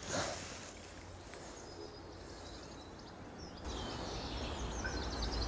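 Outdoor riverside ambience of small birds chirping over a low steady rumble. The chirping becomes louder and busier about two thirds of the way through.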